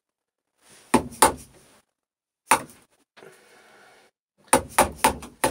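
Wooden mallet striking a bench chisel as it chops waste out of a joint in a birch post: two blows about a second in, another a little later, then a quick run of four blows near the end.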